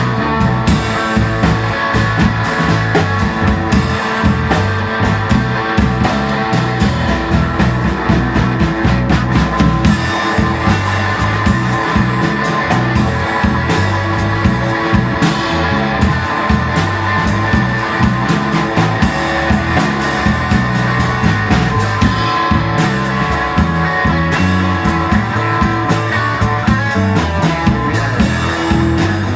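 Live band playing an instrumental break in a blues number: guitar over a drum kit keeping a steady beat.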